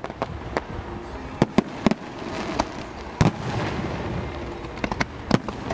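Aerial firework shells bursting overhead: about eight sharp bangs at uneven intervals, the loudest about three seconds in, with a steady hiss between the bangs from about two to four and a half seconds in.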